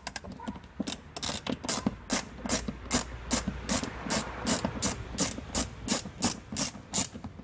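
Ratchet screwdriver clicking steadily, about three clicks a second, as a self-tapping screw holding the door trim is turned out.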